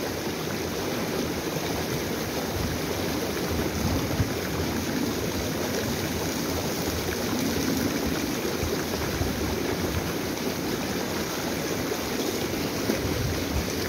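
Shallow stream rushing steadily over a small step in its bed, with gusty wind rumbling on the microphone.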